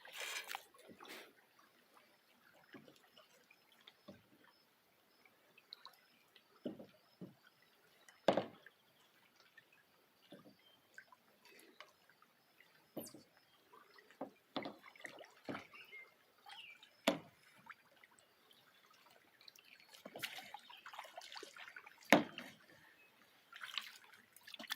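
Kayak paddle dipping into lake water: quiet, irregular small splashes and drips, one every second or two, with two sharper splashes, one about a third of the way in and one near the end.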